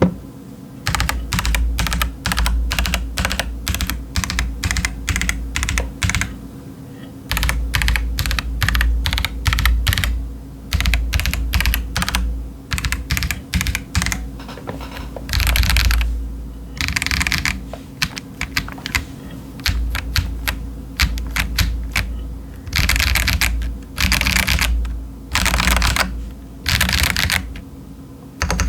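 Typing on a Feker Alice 80 mechanical keyboard with stock TTC Chaotic Panda switches and Cherry-profile doubleshot ABS keycaps. Rapid runs of keystrokes come in bursts with short pauses between them, and a few longer, denser stretches of clatter come in the second half.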